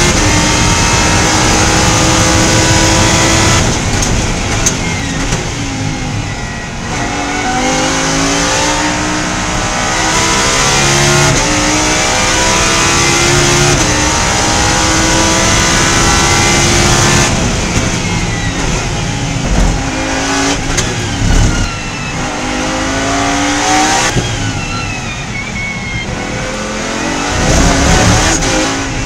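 Lamborghini Huracán Super Trofeo EVO2's naturally aspirated V10, heard from inside the cockpit at racing speed. It holds high revs in fifth gear, lifts about four seconds in, then climbs in pitch through several upshifts. Past the middle it lifts again with quick downshift blips, picks up speed, and near the end brakes down to second gear.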